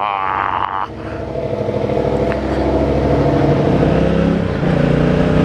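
Yamaha MT-07's parallel-twin engine under way. The sound dips briefly about a second in, then the engine note climbs steadily over the next couple of seconds as the bike accelerates.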